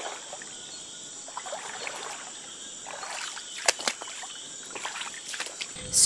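Footsteps wading through a shallow, flooded rainforest stream, water swishing and splashing around the legs, with a couple of sharper splashes a little past the middle. A steady high insect chorus of the tropical forest runs underneath.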